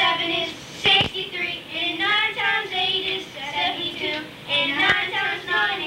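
Children singing a song, a girl's voice leading, with two sharp clicks, about a second in and near the end.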